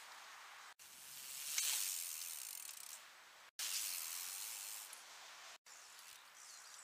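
Bicycle tyres rushing over packed dirt jumps, with the hiss swelling and fading as each bike rolls through. The sound is chopped into short clips by three abrupt cuts.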